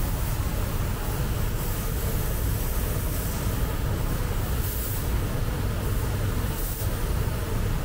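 Car body spray painting: a steady low rumble of air and machinery, with the hiss of a spray gun swelling in short bursts a few times.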